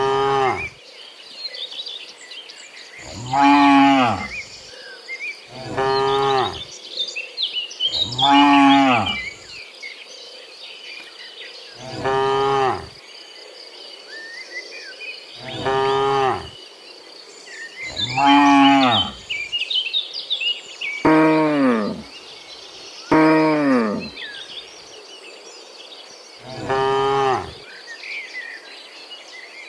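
Cows mooing, about ten long calls a few seconds apart, each lasting about a second and some sliding down in pitch. A steady high insect drone runs underneath.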